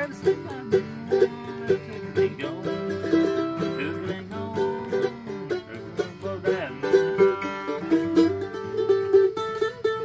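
Background music led by plucked strings, with quick picked notes over a steady rhythm.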